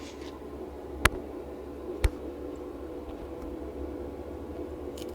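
Two sharp clicks about a second apart, then fainter ones near the end, as a plastic opening tool prises the battery of a Nokia Lumia 625 away from its foam glue strips, over a steady low hum and hiss.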